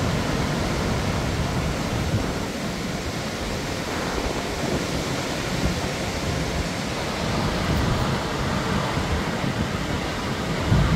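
Hurricane wind rushing steadily through dense trees, with gusts buffeting the microphone in an uneven low rumble.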